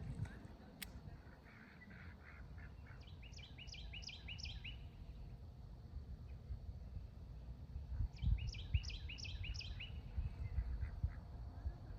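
A songbird singing two quick runs of chirps, each a rapid string of short sliding notes, the first about three seconds in and the second near eight seconds, over a steady low rumble.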